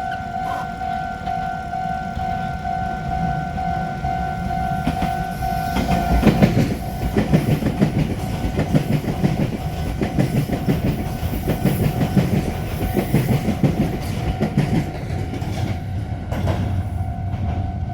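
Train passing over a level crossing, wheels clattering over the rail joints in a rhythmic run for about ten seconds, starting about six seconds in. Throughout, the crossing's electronic warning bell rings in a steady repeating pattern, partly drowned by the train and clear again near the end.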